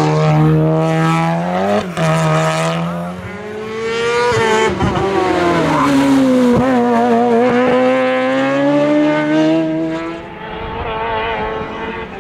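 Race car engine at high revs, its pitch climbing and breaking off sharply twice on gear changes. It then falls away and climbs again before the engine note drops back near the end.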